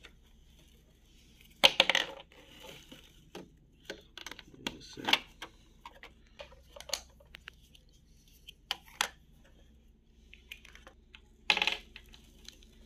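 Small plastic toy kitchen pieces clicking and clattering as they are handled and set down, in scattered sharp clicks. The loudest clatters come about two seconds in and near the end.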